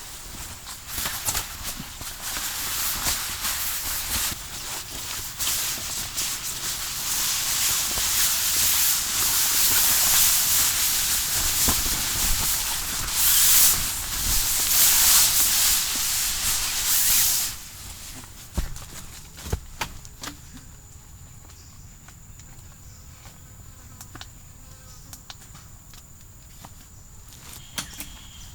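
Forest insects buzzing loudly in a dense high chorus that swells and then stops abruptly about two-thirds of the way through, leaving a quieter steady high insect whine with a few light clicks and knocks.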